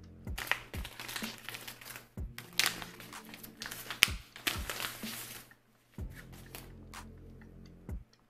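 Clear plastic bag crinkling and rustling as it is handled and a hair bundle is pulled out of it, with one sharp crackle about four seconds in. The rustling stops after about five and a half seconds.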